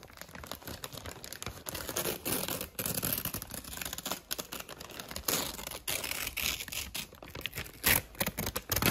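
Gift-wrapping paper being torn open and crumpled by hand: a dense, irregular run of ripping and crinkling, with a few louder rips near the end.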